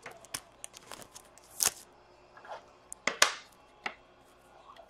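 Trading cards being handled at a table: a handful of separate sharp clicks and snaps of card stock, the loudest about three seconds in.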